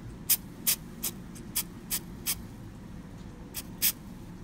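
Aerosol can of clear Flex Seal rubber sealant spraying from close up in short quick bursts: about eight brief hisses, six in the first two and a half seconds, then two close together near the end.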